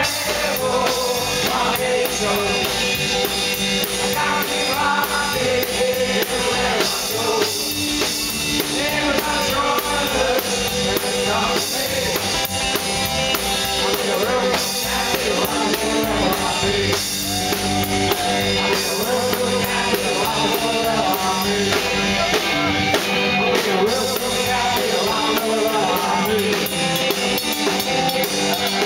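Live rock and roll band playing at full volume: a drum kit keeps a steady beat under guitars, with some singing.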